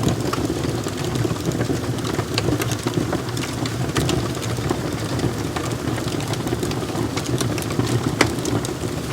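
Wood fire burning in a fireplace: a steady low rumble of the flames with frequent sharp crackles and pops from the burning wood.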